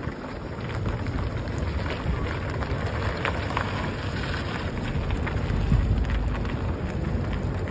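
Wind buffeting the microphone over road and tyre rumble from moving vehicles, with scattered crackles; it grows a little louder about a second in.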